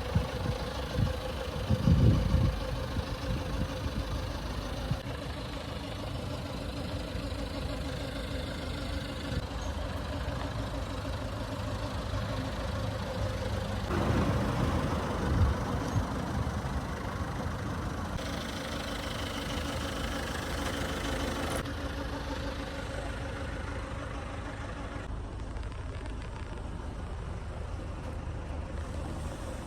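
Citroen Berlingo van's 1560cc diesel engine running steadily at idle, louder in short spells about two seconds in and again around the middle.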